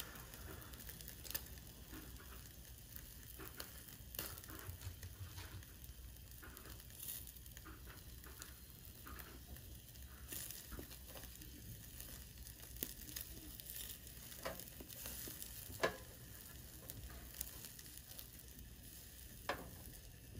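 Meat and vegetables sizzling faintly on the wire grill of a small charcoal BBQ stove, with scattered sharp pops and clicks.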